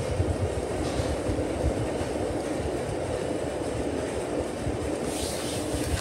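SMC U42 ceiling fan running: a steady low drone with uneven low rumbling underneath. A brief hiss comes in near the end.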